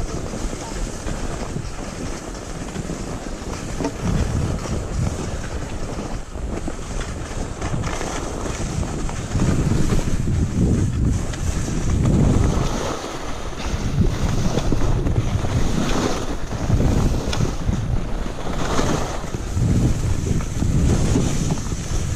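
Wind rushing over the microphone of a skier's action camera on a fast downhill run, with the hiss of skis on snow. The low buffeting comes in uneven gusts and grows louder from about ten seconds in.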